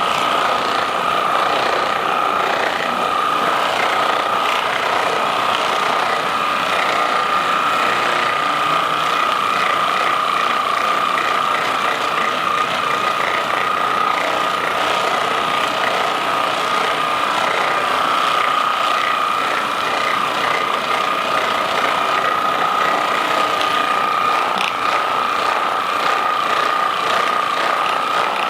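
Handheld percussion massage gun running steadily on the back muscles to relax them before an adjustment, with a steady high motor whine over a rapid mechanical buzz.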